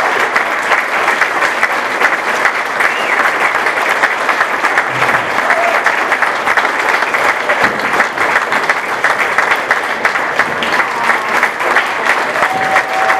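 A roomful of people applauding, with dense, steady clapping that does not let up.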